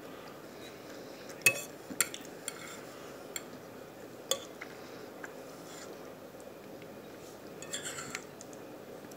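Metal fork clinking and scraping against a plate of food: a few sharp clinks, the loudest about a second and a half in, and a short scrape near the end.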